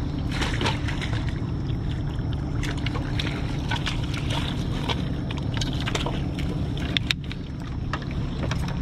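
Footsteps scrambling over riprap rocks with fishing gear knocking and scraping, over a steady low engine drone from a passing ship on the river.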